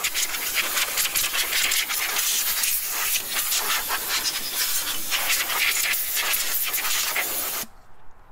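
Compressed-air blowgun blowing a loud, steady hiss of air onto the engine's accessory-belt pulleys, clearing loose debris off them. The air cuts off abruptly near the end.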